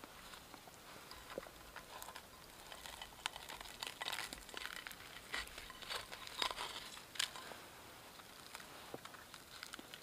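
Crisp pan-fried flatbread crackling and crunching as it is folded by hand around a sausage and greens and lifted from a frying pan, with small clicks and scrapes against the pan; the crackling thickens after about two seconds and ends with two sharper crunches near the end.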